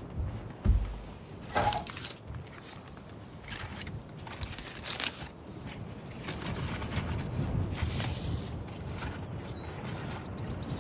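Wind buffeting the microphone in a low rumble, with a thump about a second in and scattered short scrapes.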